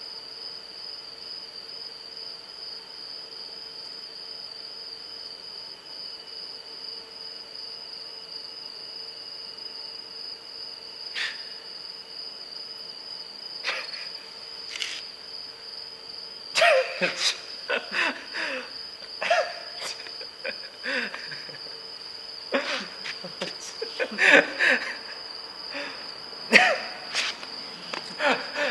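Crickets chirping steadily throughout. A couple of sharp clicks come around the middle, then from a little past halfway a man and a woman break into repeated short bursts of laughter, which are the loudest sounds.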